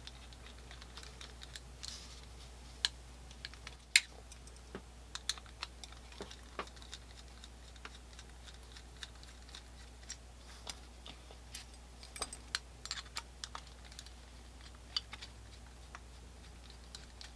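Screwdriver turning out the trigger-guard screws of a Colt black-powder revolver: scattered light metallic clicks and ticks as the blade seats and the small screws are handled and set down, with two sharper clicks in the first four seconds.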